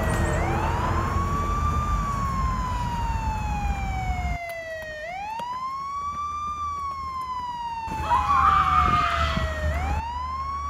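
Police siren in a wail pattern: the pitch sweeps quickly up, then slides slowly down over several seconds, three times.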